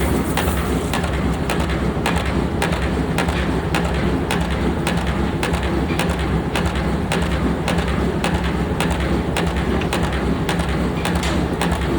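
Pneumatic forging power hammer striking hot steel in a steady rhythm of about three blows a second, over a continuous low rumble.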